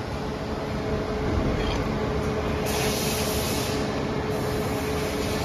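IKING SN7-1600i inverter stud welding machine powered on and idling, its cooling fan running with a steady rush and a faint steady hum. A higher hiss joins for about a second and a half midway.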